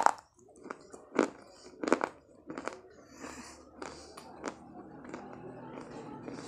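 Close-up crunching of a piece of dark baked clay between the teeth: a sharp bite at the start, then crisp crunches every half second to a second, giving way to softer chewing after about four and a half seconds.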